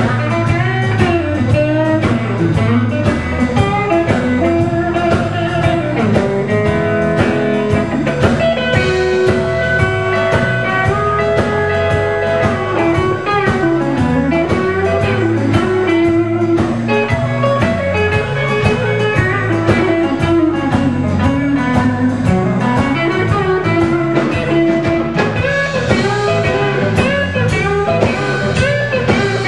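Blues band playing: a guitar carries lead lines with bent, wavering notes over bass and a steady drum beat.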